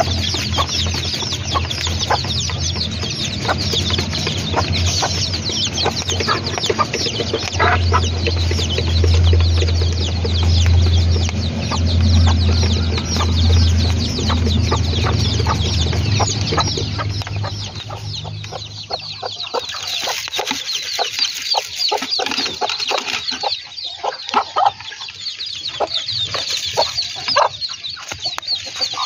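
Flock of kampung chickens clucking and calling, with many short high calls overlapping throughout. A steady low hum runs under them and stops about two-thirds of the way through.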